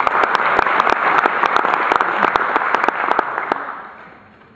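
Audience applauding, a dense patter of handclaps that dies away about three and a half seconds in.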